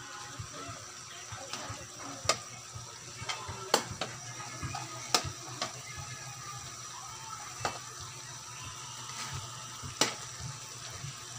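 Pansit bihon rice noodles sizzling in a large metal pan as a metal spoon stirs and tosses them, with a steady hiss and a few sharp clinks of the spoon against the pan.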